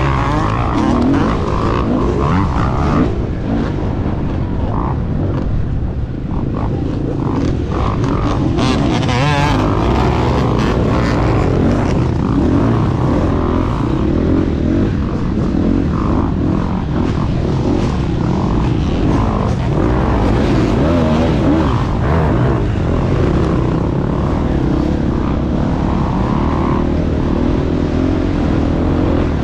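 Dirt bike engine revving up and down with the throttle, running hard without a break.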